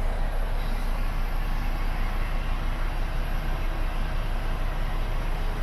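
Scania G400's straight-six diesel engine idling steadily, heard from inside the cab.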